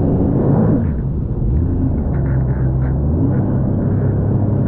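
Jet ski engine running under way, its pitch falling and rising a few times as the throttle is eased and opened, over the rush of water churned up around the hull.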